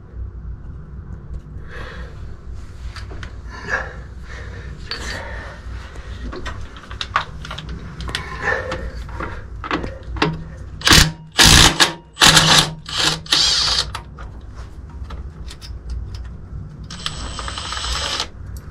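Metal tools and engine parts clinking and knocking during work in a boat's engine bay, over a steady low hum. A few loud short noises come a little past the middle, and another short steady one near the end.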